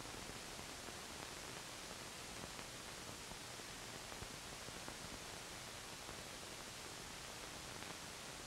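Faint, steady hiss of an old film soundtrack's background noise; no distinct sound from the work being shown.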